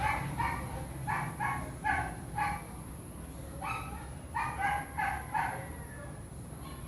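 A dog barking in quick, high-pitched yaps, two runs of about half a dozen barks each with a short pause between them.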